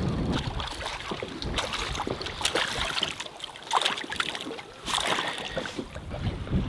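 Irregular splashing of a hooked European sea bass thrashing at the surface beside the boat, with several louder splashes in the middle.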